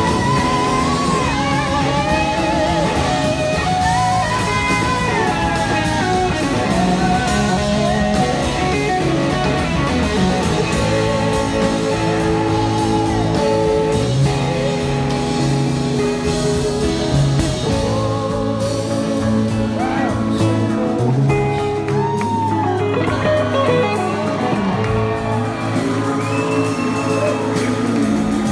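Live blues-rock band playing: electric guitar, drums and a woman singing, with melody lines gliding up and down.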